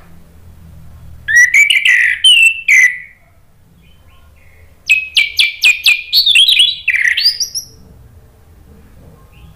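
Orange-headed thrush singing two loud phrases of quick, sharp chattering and whistled notes: one about a second in and another about five seconds in, with a short pause between.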